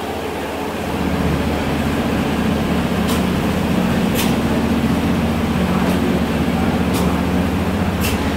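Machinery on a filter-element production line running with a steady low hum that grows louder about a second in, with about five sharp clicks scattered through it.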